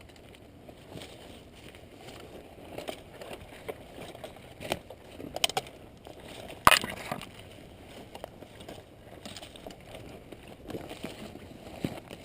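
Irregular crunching and rustling of footsteps and movement through brush, with scattered sharp clicks and one loud sharp crack about seven seconds in.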